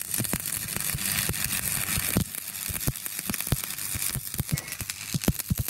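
Stick-welding arc burning a rod electrode on steel plate: a steady crackling sizzle broken by frequent irregular sharp pops.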